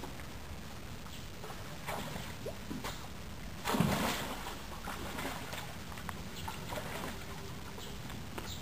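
Hippopotamus wading into a pool with its muzzle in the water, water sloshing and splashing around its head, with one loud splash about four seconds in. A steady low hum lies underneath.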